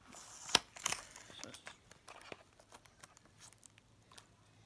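Plastic blister packaging of a toy being pulled at by hand: a burst of crinkling with a sharp snap about half a second in, then scattered lighter crinkles and clicks that thin out.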